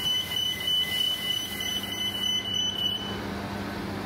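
A high, steady electronic-sounding tone pulsing about three times a second, which stops about three seconds in, over a low steady hum.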